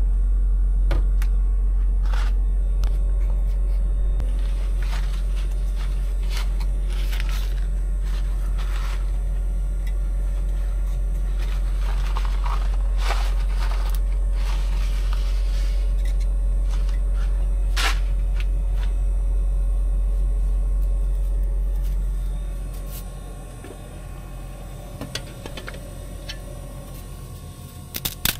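Steady low drone with scattered clicks and crackles over it; the drone drops away sharply about 22 seconds in.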